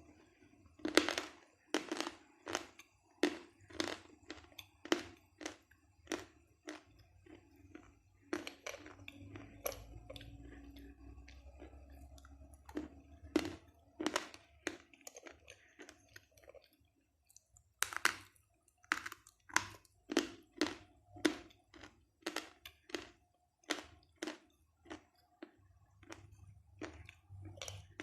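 Crunching bites and chewing of a wetted piece of Льдинка edible chalk, a sharp crunch about once a second, pausing briefly past the middle before the crunching resumes.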